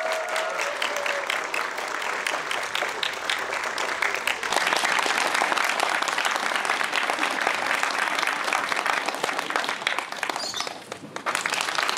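Crowd of wedding guests applauding, the clapping growing louder about four and a half seconds in and dipping briefly near the end before picking up again.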